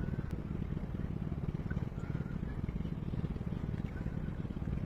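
An engine running steadily with a fast, even pulse and no change in speed.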